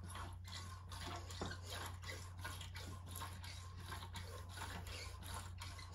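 Faint squishing and gurgling of fork oil inside a freshly filled Yamaha XT500 front fork leg as it is pumped by hand, in soft, even pulses about three to four a second.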